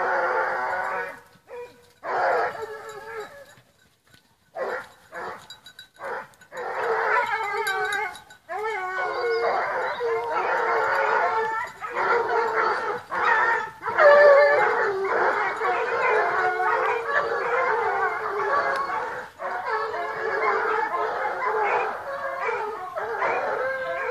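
A pack of Petit Bleu de Gascogne hounds giving tongue on a wild boar's line: scattered barks and yelps with gaps at first, then the whole pack in full cry from about eight seconds in. The broken barking turning to full cry is the pack recovering the scent after a brief check.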